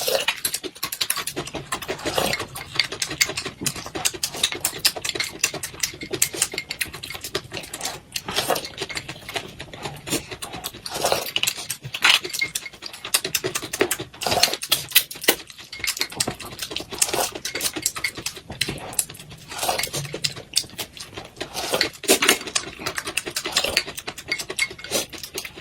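A person eating stewed duck: irregular chewing and lip-smacking with utensils clicking against a dish.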